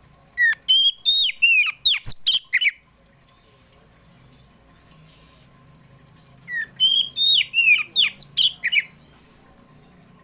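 Oriental magpie-robin of the white-bellied 'kacer poci' form singing: two loud phrases of rapid, clear whistled notes with sharp rising and falling slurs, the second starting about six seconds after the first.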